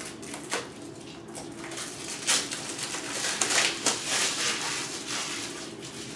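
Plastic shrink wrap crinkling and tearing as it is slit with a small knife and peeled off a Blu-ray case. It is a run of crackly rustles, busiest in the middle.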